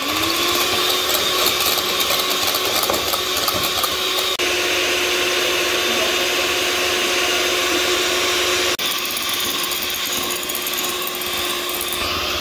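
Electric hand mixer running steadily at speed, its two beaters whipping cream in a glass bowl as it thickens to stiff peaks. The steady hum jumps abruptly twice, about four and nine seconds in.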